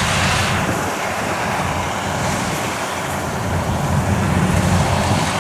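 Yanmar YH850 rice combine harvester running at work: a steady diesel engine drone with machinery noise, a little louder near the end.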